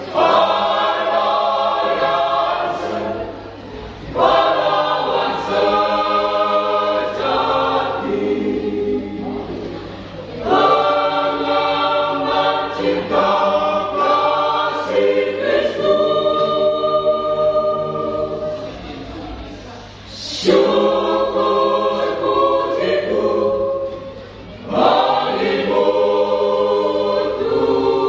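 Church choir singing, phrase after phrase, with short dips for breath between phrases every few seconds.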